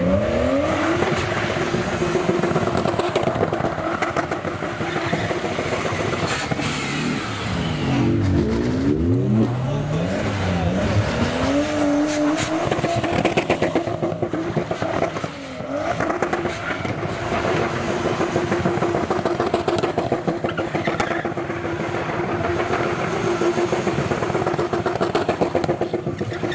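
Car engine revving hard while drifting, with tyres squealing. The revs rise and fall sharply in the first half, then hold at a steady high pitch for most of the rest.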